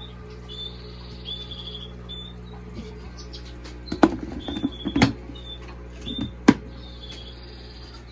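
A bird chirping repeatedly, short high chirps about once or twice a second, over a steady low hum. A few sharp knocks come about four, five and six and a half seconds in.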